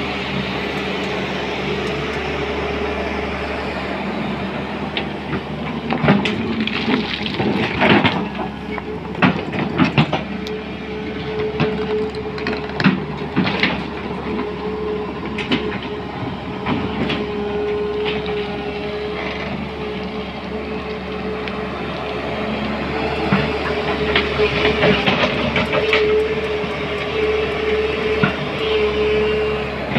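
SANY SY210C-9 crawler excavator working in gravel: its diesel engine runs under load with a steady whine, while the bucket and tracks clank and scrape on stones, the knocks coming thickest from about six to fourteen seconds in and again near the end.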